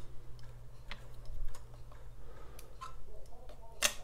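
Small irregular metal clicks and ticks of a long screwdriver working the ejector screw inside the receiver of a Smith & Wesson 916A pump shotgun, with one sharper click near the end.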